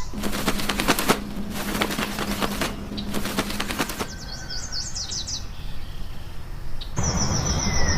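A bird's wings flapping and feathers rustling in dense clattering bursts for about four seconds, over a steady low hum. Then a run of quick, high, falling chirps, and about a second before the end a steady high tone with more birdsong comes in.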